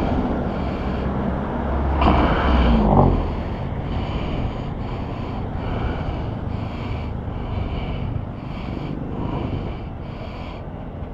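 Street traffic rumbling past a stopped scooter, with a louder vehicle passing about two seconds in. A faint high pulsing sound repeats about twice a second through most of it.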